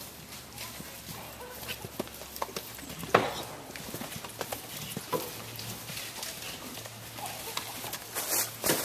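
Hoofbeats of horses cantering past on a hard-surfaced lane: an uneven run of clops, with a loud strike about three seconds in and a close cluster of strikes near the end.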